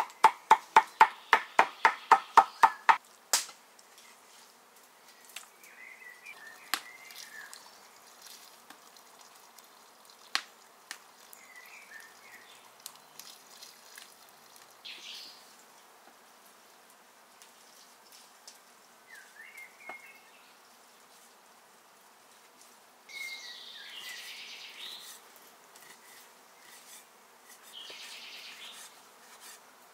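A steel cleaver chopping raw liver on a wooden cutting board, about four quick strokes a second, stopping about three seconds in. After that, a quiet outdoor background with birds chirping now and then and a few sharp single clicks.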